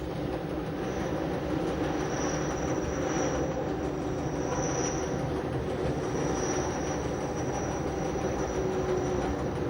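Berner Oberland-Bahn electric train running on the rails with a steady rumble and hum. A faint high wheel squeal comes and goes several times.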